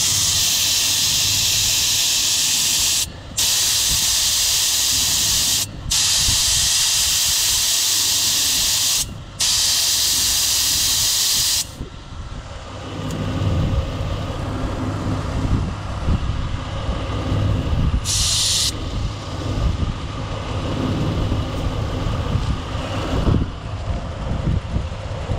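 Air hissing out of a car tire through a tire deflator with a pressure gauge, stopping three times briefly and cutting off about twelve seconds in as the tire is let down for off-road driving. After that, wind rumbling on the microphone, with one more short hiss of air partway through.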